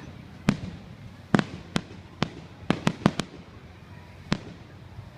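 Fireworks exploding: about nine sharp bangs at irregular intervals, with a quick cluster of four around the middle.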